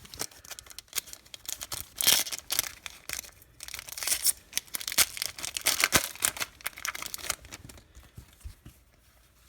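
A Yu-Gi-Oh booster pack's foil wrapper being torn open and crinkled: a dense string of sharp crackles and tearing, which dies down near the end.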